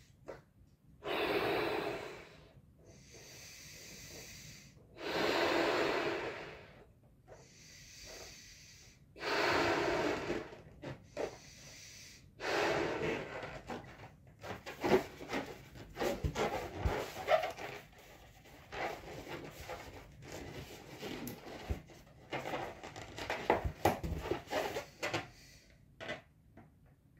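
A latex party balloon being blown up by mouth: four long breathy blows into it, with quieter in-breaths between. After that come about twelve seconds of quick crackling clicks and squeaks as the inflated balloon's rubber is handled, which fits its neck being twisted and knotted.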